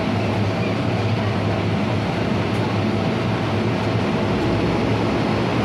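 Steady low hum inside an MTR M-Train car standing still at a station with its doors open, the train's onboard equipment running.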